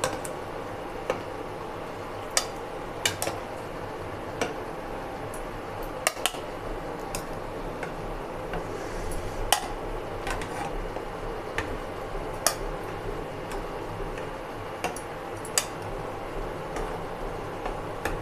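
Steel ladle clinking against a cooking pot and a metal plate as boiled rice dumplings are scooped out of the water, with sharp irregular knocks every second or so over a steady background.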